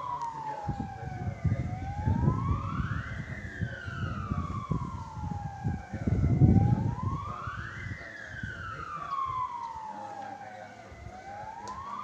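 Siren sounded to mark the Proclamation moment on Indonesian Independence Day, wailing in slow cycles: each rises quickly and falls away more slowly, about once every five seconds. A low rumble runs under it in the first half, loudest about six seconds in.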